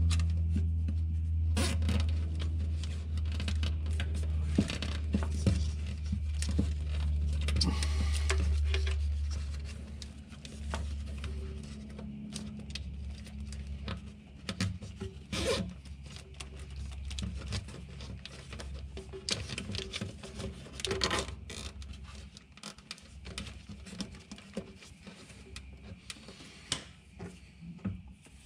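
Hands handling and fastening a corrugated plastic cable loom: rustling, scraping and clicking, with a few short zipping sounds. A low steady hum underneath drops away about ten seconds in.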